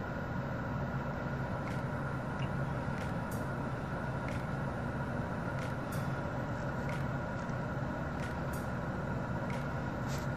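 Steady machine hum with a hiss, holding a few constant tones, and faint irregular ticks about once a second.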